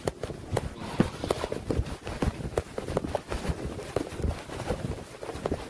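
Footsteps of a person walking at a steady pace: a run of soft thumps about two to three a second, mixed with knocks and rubbing from the recording phone being carried.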